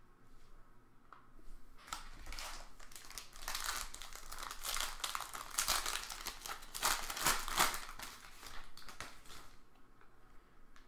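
Plastic packaging crinkling and tearing as a pack of sports cards is unwrapped by hand: an irregular run of quick crackles, loudest in the middle and dying away about a second before the end.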